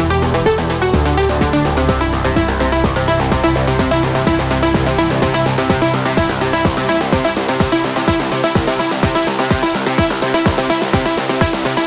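Trance music: a steady kick drum about twice a second under sustained synth chords. The deep held bass drops out about five seconds in, leaving the kick and chords.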